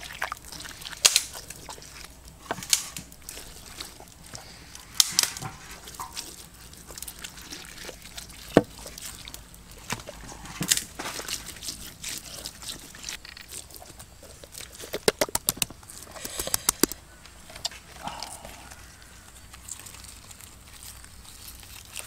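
Wet squelching and smacking of hands rubbing chili paste into raw whole fish in a wicker basket. Scattered sharp clicks and slaps come throughout, with a quick run of them about two thirds of the way through.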